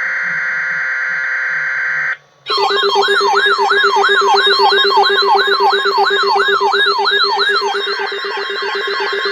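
Broadcast emergency alert tones: a steady electronic tone that cuts off about two seconds in, then, after a brief pause, a warbling siren-like tone sweeping up and down about three times a second over a steady lower tone.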